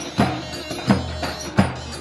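Davul, the large Turkish double-headed bass drum, beaten in a steady dance rhythm: three heavy strokes about 0.7 seconds apart with lighter strokes between.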